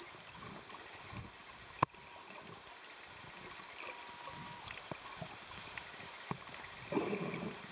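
Underwater sound picked up by a submerged camera: a steady water hiss with scattered clicks and crackles, one sharp click about two seconds in and a short louder rumble near the end.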